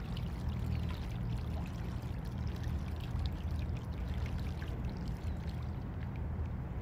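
Mallard ducks splashing in the water as they bathe, small irregular splashes over a steady low rumble.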